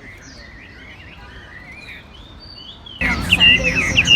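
Caged songbirds singing: many short whistled notes sliding up and down, overlapping. About three seconds in it turns suddenly louder and busier, with several birds singing at once.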